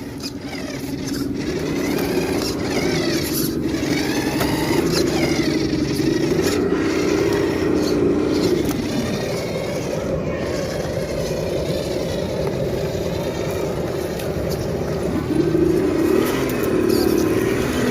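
Radio-controlled off-road truck's electric motor and geartrain whining, the pitch wavering up and down with the throttle as it crawls; it builds up over the first couple of seconds, eases in the middle and swells again near the end.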